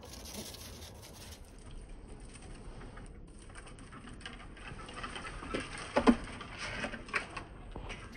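A black squirrel's claws scratching and pattering on bare branches as it climbs, with a few sharper clicks about six and seven seconds in.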